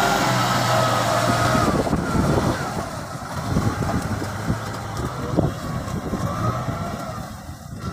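Kubota M6040SU tractor's diesel engine running while plowing, with irregular knocks and clanks. The steady engine note drops away after about two seconds.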